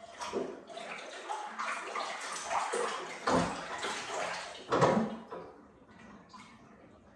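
Bathwater splashing and sloshing in a bathtub as a yellow Labrador puppy is washed by hand, with two louder splashes a little past three seconds and about five seconds in.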